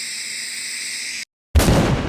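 A steady hiss with several high whining tones, typical of a TIG welding arc, cuts off abruptly about a second in. After a moment of dead silence a sudden loud boom hits and slowly dies away, an edited impact sound effect.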